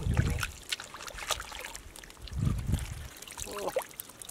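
Small splashes and trickling of shallow muddy water, broken by scattered short clicks and two low thuds, one at the start and one about two and a half seconds in.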